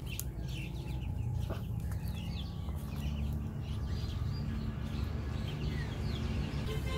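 A flock of ducklings peeping: many short, high chirps overlapping irregularly over a steady low rumble.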